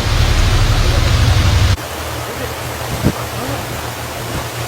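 Steady rushing noise of wind and water with a heavy low rumble, dropping suddenly to a quieter hiss about two seconds in; a faint knock about three seconds in.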